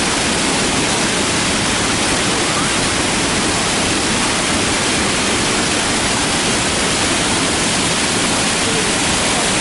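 Loud, steady rush of fast-flowing river water through rapids.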